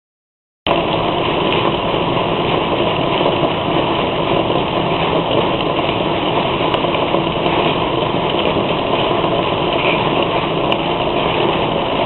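Steady rain with rainwater pouring and splashing off a concrete edge, heard through a CCTV camera's narrow-band microphone as an even hiss. It cuts in just under a second in, after a short silence.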